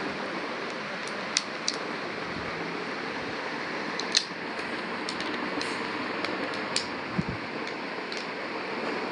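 Steady whirring hiss, as of a room fan, with a few light clicks and taps from plastic packaging being handled; the sharpest click comes about four seconds in.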